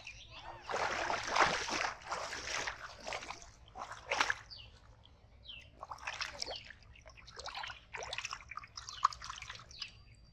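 Water splashing and sloshing in irregular bursts as caught fish thrash in a water-filled metal pot, loudest a second or two in.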